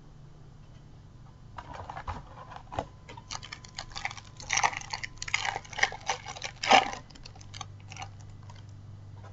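A Match Attax trading-card packet being torn open by hand, its wrapper crinkling and crackling for about five seconds from about a second and a half in, loudest near the end, then a few last rustles.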